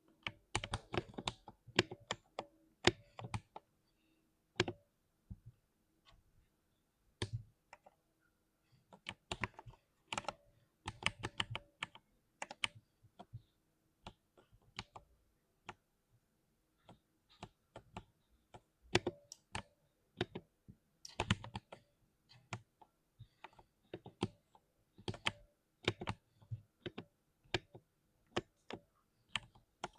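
Typing on a 60% mechanical keyboard: irregular runs of sharp key clicks and clacks with short pauses between bursts.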